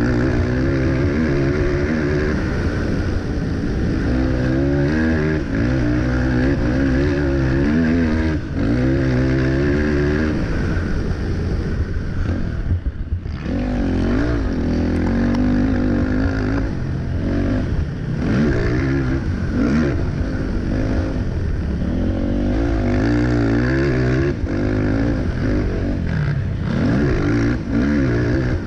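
Racing quad's engine revving hard, its pitch climbing and falling again and again as it is ridden through turns and down straights. The engine drops off briefly about thirteen seconds in.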